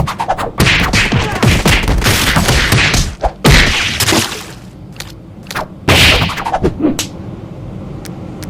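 Cartoon slapstick fight sound effects: a rapid, loud jumble of whacks, thuds and whooshes, with the heaviest hits about three and a half and six seconds in, and a calmer stretch between them.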